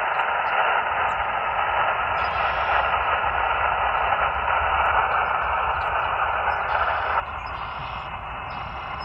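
Single-sideband radio receiver hiss from the Elecraft KX2's speaker: steady band noise with no station coming through while the operator listens between CQ calls. The hiss drops a step about seven seconds in.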